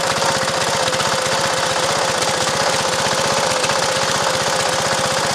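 Small gasoline engine of a miniature-railway speeder running steadily as the speeder travels along the track, a fast, even chugging with a steady whine over it.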